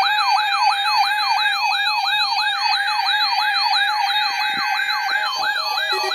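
Electronic siren-style alert tone yelping rapidly up and down, about four sweeps a second, over a steady tone, used as the attention signal of an emergency alert broadcast.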